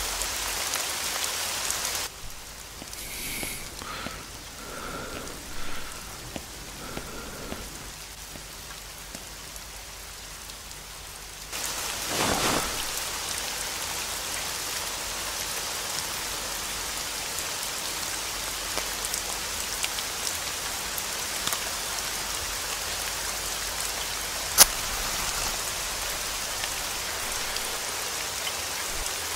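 Heavy rain falling steadily. It drops away for several seconds soon after the start, then comes back with a brief swell, and a single sharp click sounds about two-thirds of the way through.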